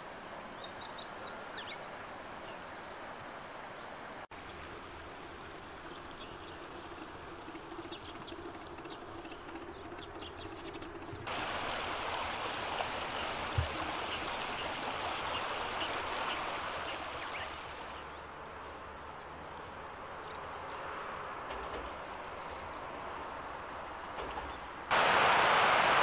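Running river water with short, high songbird calls scattered over it. The water gets much louder near the end, rushing close by.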